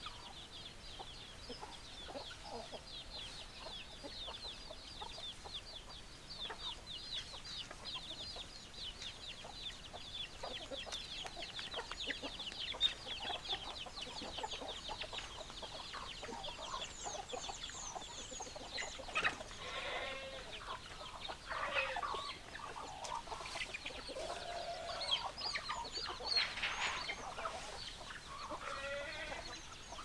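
A flock of free-range chickens: a steady, rapid, high peeping, like chicks, fills the first half, then hens cluck and squawk louder and more often from about twenty seconds in.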